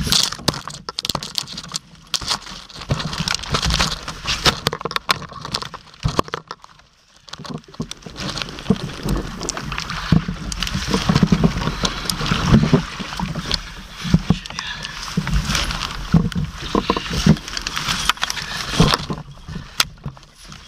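Water sloshing and splashing against a kayak's side, with many irregular knocks, clicks and rattles of a landing net and gear being handled at the hull.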